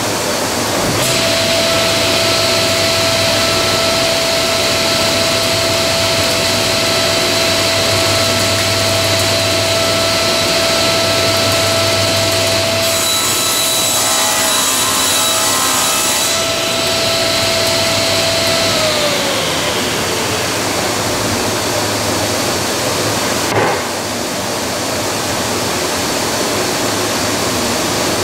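Table saw starting up and running with a steady whine, cutting through a plywood sheet partway in, then switched off, its whine falling away as the blade spins down. A steady rushing noise runs underneath throughout, with a single knock near the end.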